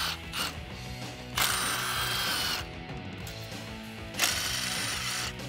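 Cordless Milwaukee FUEL power ratchet spinning out 7 mm coil-pack bolts, in two runs of about a second each, the first about a second and a half in and the second near the end. Background music plays under it.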